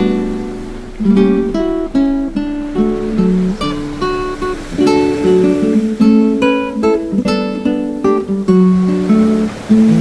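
Background music of an acoustic guitar, plucked and strummed notes in a flowing melody.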